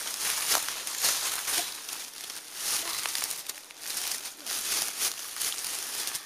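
Dry leaves, twigs and bark crackling and rustling in irregular bursts as a log is turned over by hand.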